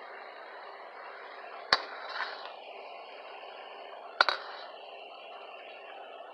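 Liquid sizzling and bubbling in a hot wok, with a metal ladle clanking sharply against the wok twice, about two and four seconds in, each clank followed by a lighter knock.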